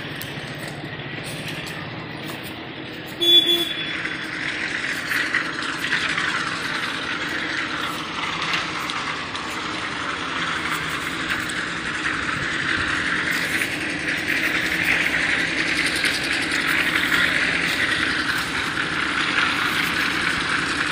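Steady outdoor background noise of vehicle traffic, growing a little louder over the second half. About three seconds in there is one short, loud, beep-like sound.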